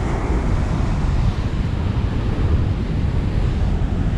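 Steady wind rumbling on the microphone over rough surf breaking on the beach.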